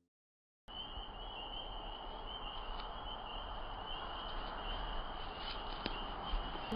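Outdoor night ambience: a steady high chirring of insects over a low rumble and hiss. It sets in abruptly after a brief silence at the start.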